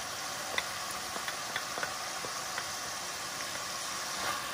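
Ground pork sizzling steadily as it fries in oil and its own rendered fat in a pan, with small crackles every fraction of a second.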